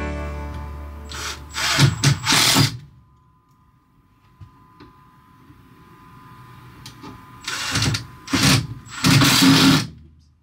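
Cordless drill driving screws in short bursts, two runs of them a few seconds apart, as the fridge installation is fastened back in place.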